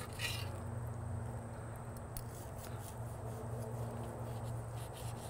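Chef's knife slicing through a seared beef tenderloin roast on a slate board. There is a short scrape of the blade just after the start and fainter cutting sounds about two seconds in, over a low steady hum.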